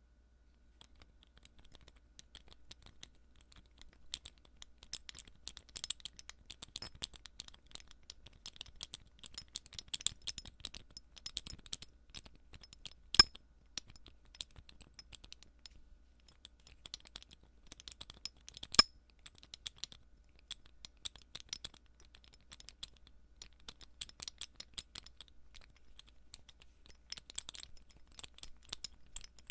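Metal dog tags rattling and clinking against each other in irregular flurries of small, high-pitched jingling clicks. Two much louder single clinks stand out, about halfway through and again some six seconds later.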